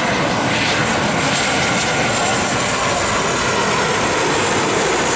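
Airliner passing low on its landing approach, its engines making a loud, steady noise.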